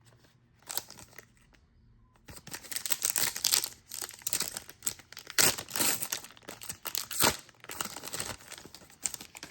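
A trading-card pack wrapper being torn open and crinkled by hand: a few light clicks, then several seconds of dense crackling and rustling.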